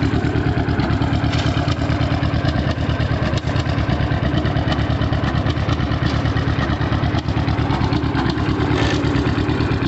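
John Deere G tractor's two-cylinder engine running steadily, with a fast, even pulse.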